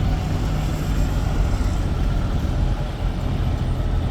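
Heavy diesel truck engine running with a low, steady rumble.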